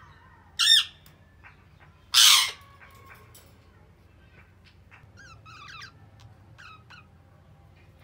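Budgerigars calling: a loud squawk just under a second in and a louder harsh screech about two seconds in, then softer chirping chatter.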